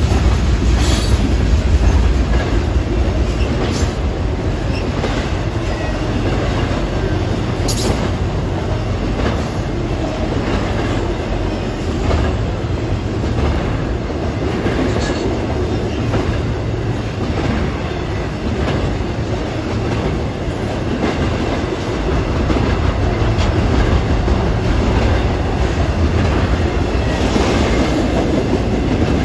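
CSX freight train rolling past at speed: a steady heavy rumble of rail cars with a running patter of wheel clicks over the rail joints.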